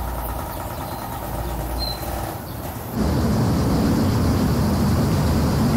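A quiet steady hum, then about three seconds in a sudden switch to louder, steady street-traffic rumble of passing and idling vehicles.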